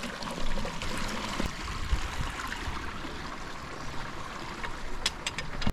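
Small creek running over rocks: a steady rush of water, with a few sharp clicks about five seconds in.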